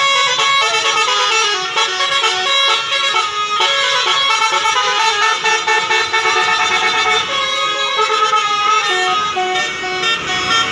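Multi-tone 'telolet' horn of the basuri type playing a quick melody, several horn notes sounding together and stepping from pitch to pitch without a break.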